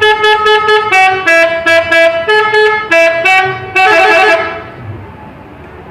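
Bus telolet horn, a multi-trumpet musical air horn, playing a quick tune of short notes at several pitches. It ends about four and a half seconds in with one longer note that fades away.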